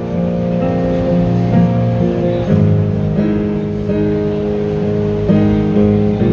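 Live band instrumental passage of a Cantopop ballad, with no singing: guitar and keyboard playing sustained chords that change every second or so.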